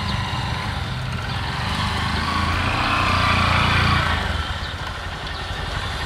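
Small motorcycle engine passing by, growing louder to a peak about three to four seconds in and then fading, over a steady low engine hum.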